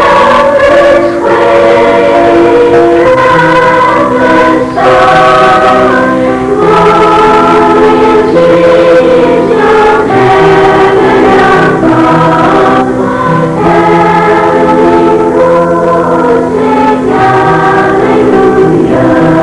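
School choir singing a Christmas carol in sustained, slow-moving harmony.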